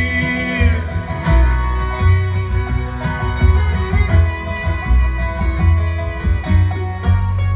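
Live bluegrass band playing an instrumental passage with no singing: fiddle lead over banjo, mandolin, acoustic guitar and upright bass. The band settles onto a held chord about seven seconds in.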